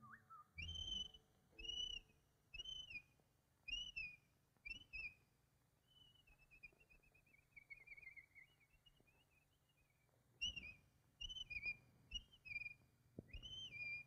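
Whistled cartoon bird calls: five short up-and-down chirps about a second apart, then a long wavering warble that slowly falls in pitch, then a quicker string of chirps near the end.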